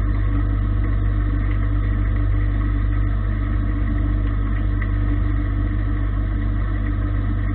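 Gildemeister CTX 400 S2 CNC lathe running a turning cut: a steady machine hum from the spinning spindle and drives, with a strong low hum underneath.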